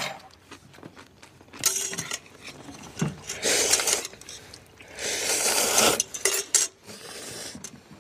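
Ramen noodles being slurped from a pot in several loud, hissing pulls, the longest about five seconds in, with chopsticks clinking against the metal pot between them.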